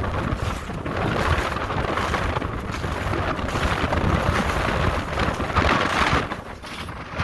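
Strong wind buffeting the microphone, a gusting rumble that swells and eases, loudest about five and a half to six seconds in.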